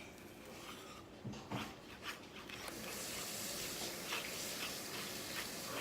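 Quiet rubbing, with a few light taps and scrapes about a second or two in, as slime is mixed and handled.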